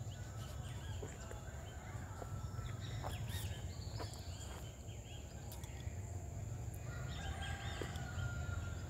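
Countryside ambience: birds calling and chirping on and off, busiest about three seconds in and again near the end, over a steady high whine and a low steady rumble.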